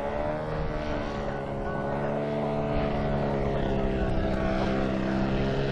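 Engine of a large radio-controlled model aeroplane running steadily in flight, its drone growing louder as the plane comes closer.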